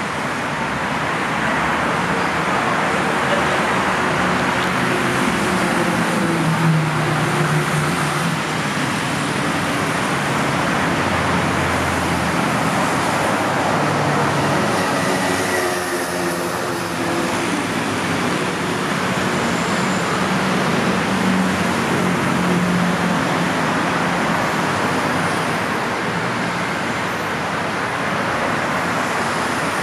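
Steady city road traffic: cars and motorcycles passing on a busy street, their engine hum swelling and fading every few seconds.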